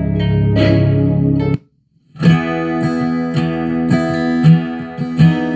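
Music played through car audio speakers under test: a bass-heavy track cuts off about a second and a half in, and after a brief silence an acoustic guitar song starts with strummed chords.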